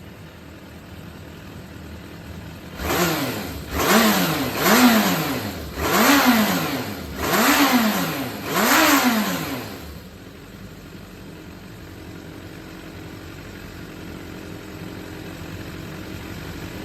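Suzuki GSX400 Impulse (GK79A) inline-four engine idling, then revved in about six quick throttle blips, each rising and falling in pitch, before settling back to idle. The engine runs without abnormal noise, as the seller describes it.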